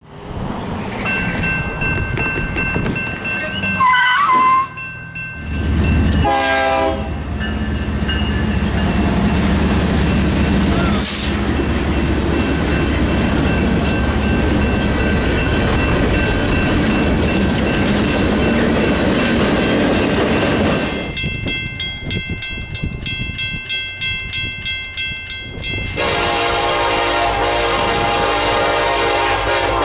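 Railroad grade crossing warning bells ringing over the steady rumble of a passing freight train. A crossing bell then dings rapidly, and a locomotive horn sounds its chord through the last few seconds.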